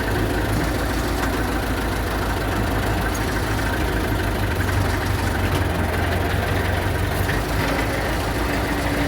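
MTZ-50 tractor's four-cylinder diesel engine idling steadily.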